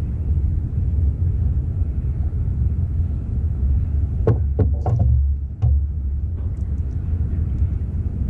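A steady low rumble, with a short run of sharp clicks and knocks about four to five seconds in.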